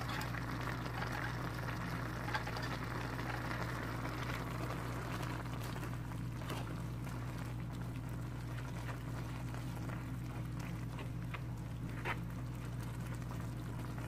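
Pork and vegetables simmering in liquid in a nonstick frying pan, a steady bubbling hiss over a low hum, with a few light clicks of a plastic slotted spatula against the pan as the cabbage is stirred.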